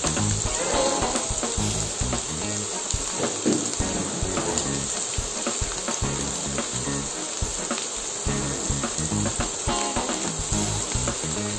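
Sirloin steak sizzling in melted butter in a skillet, a steady crackle of many small pops as it sears.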